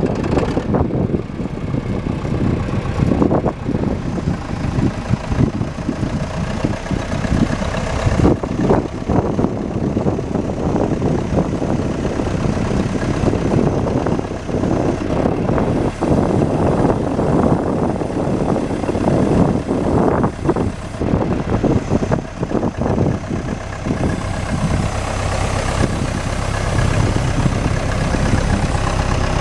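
John Deere 510C loader backhoe's diesel engine running, with an uneven low rumble that evens out over the last few seconds.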